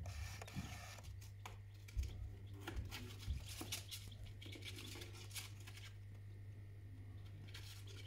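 Faint scattered scratching and clicking over a steady low hum, with a couple of soft knocks in the first half.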